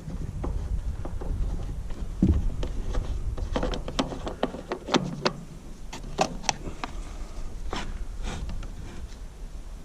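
Hands handling tools and metal parts: a dull thump about two seconds in, then a run of short, sharp clicks and knocks, thickest in the middle.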